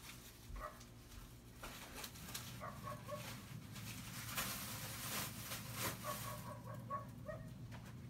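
Mung bean sprouts steaming under a glass lid in a pan cooked with water instead of oil: a soft bubbling hiss that swells for a couple of seconds in the middle, with short squeaky chirps now and then.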